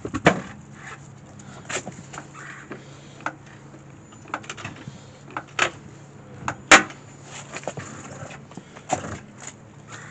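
Wheel and tire being pulled off the hub and handled: scattered knocks and clunks of the wheel and tire against metal and the ground, loudest twice, near the start and about two-thirds through, over a low hum that fades about halfway.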